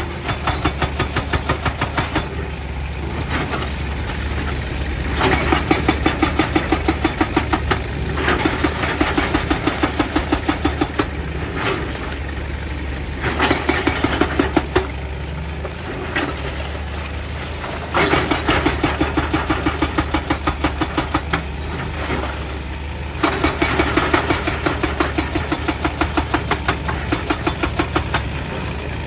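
Excavator-mounted hydraulic rock breaker hammering rock in runs of rapid, even blows lasting a few seconds, with short pauses between runs. The excavator's diesel engine runs steadily underneath.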